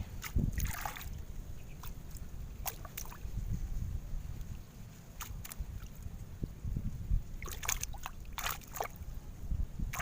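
Water sloshing with a few short, scattered splashes over a steady low rumble.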